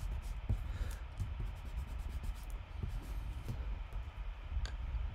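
Eraser rubbing on drawing paper in short, soft, irregular strokes, erasing pencil guide lines, with one brief click near the end.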